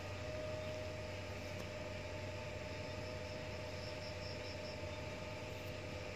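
Steady background hiss with a constant hum, and a brief run of about five faint high chirps about four seconds in; the cats make no call.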